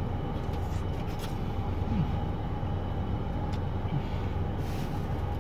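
Steady low rumble of an idling vehicle, with a few faint clicks and rustles.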